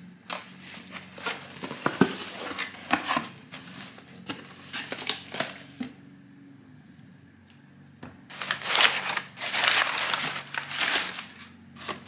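Cardboard box flaps being opened and handled, with scattered knocks and rustles, then, about two-thirds of the way in, crumpled kraft packing paper being rustled and pulled aside, the loudest part.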